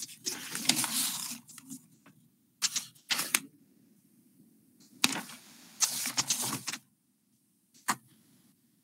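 Several short bursts of rustling and clattering handling noise over a low steady hum, heard through a video-call microphone. The longest bursts come near the start and about two-thirds of the way in, with a brief one near the end.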